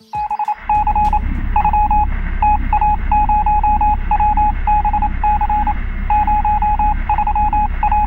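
Electronic beeping sound effect for the channel's end-card animation: a single high beep keyed on and off rapidly in short and longer groups, like telegraph code, over a steady low rumble.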